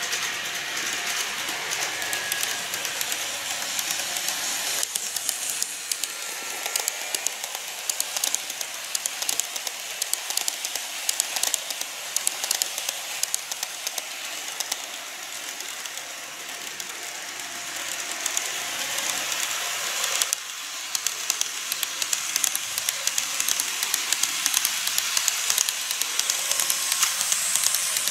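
KATO N-gauge model trains running on the track: a steady high hiss with rapid clicking of the wheels over the rail joints, getting louder near the end as a 415 series EMU model passes close.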